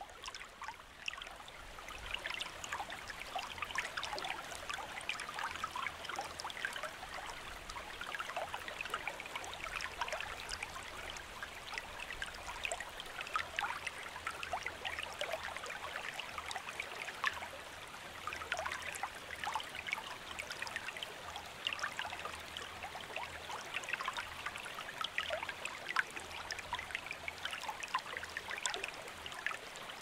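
Creek water flowing and babbling steadily, with many small splashes.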